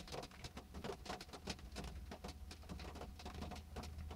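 Faint, irregular clicks and rustles over a low steady hum: handling noise from a phone held in the hand while a finger taps and scrolls its touchscreen.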